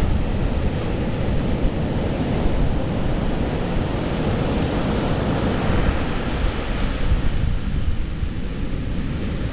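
Ocean surf breaking and washing in at the foot of a sea cliff, a steady rushing noise, with wind buffeting the microphone as a low rumble.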